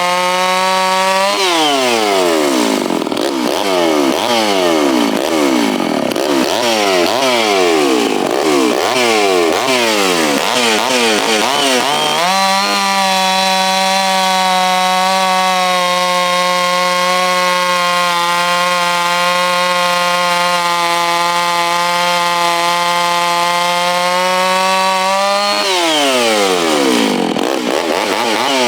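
Stihl MS660 single-cylinder two-stroke chainsaw running at high revs. For about eleven seconds after the first second, and again near the end, its engine speed repeatedly drops and recovers; in between it holds steady at full throttle.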